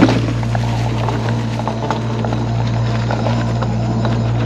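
Mobility scooter running along a dirt-and-grass trail: a steady low motor hum with scattered small rattles and crackles.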